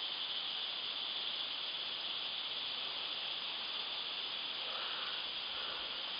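Steady forest insect chorus: a continuous high buzzing band that holds unchanged.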